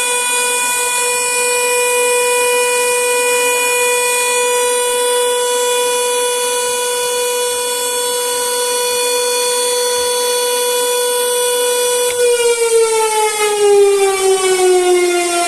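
High-power electric hooter siren sounding one loud, steady wail. About twelve seconds in its pitch starts to fall steadily as it winds down.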